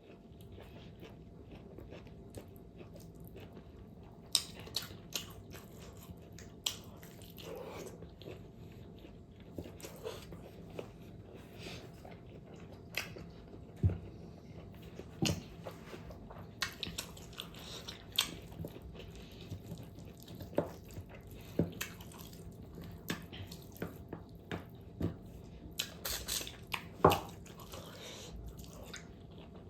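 A person chewing and biting fatty pork close to the microphone: scattered wet smacks and clicks, irregularly spaced, over a faint steady hum.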